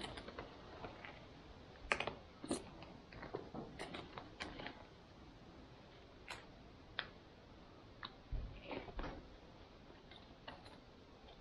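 A long-handled black spoon scraping and clicking inside a foil ready-meal pouch, with the pouch and its cardboard sleeve crinkling. The sounds are faint, scattered clicks and short scrapes, the loudest about two seconds in.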